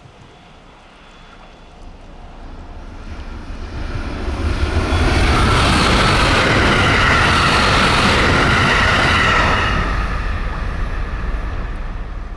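An electric train passing at speed, rising to its loudest about five seconds in, holding for about five seconds, then fading away.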